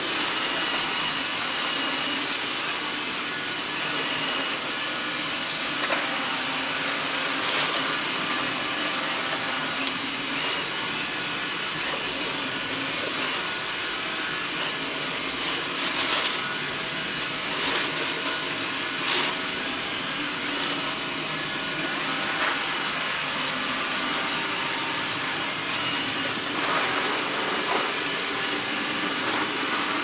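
Xiaomi Mi robot vacuum running steadily, its motor and brushes making an even hum as it sweeps up oats and powder from a hard floor, with a few short clicks scattered through.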